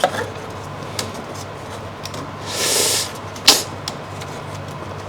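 Packing parts being handled and pulled out of a Bambu Lab X1C 3D printer: a few light clicks, a short scraping rustle about two and a half seconds in, then a sharp click, over a faint steady low hum.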